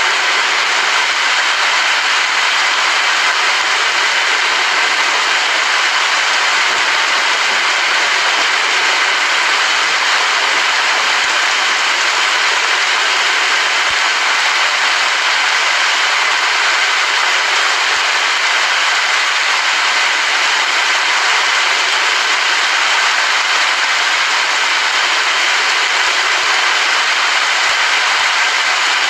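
Steady rain, an even hiss with no thunder or other events.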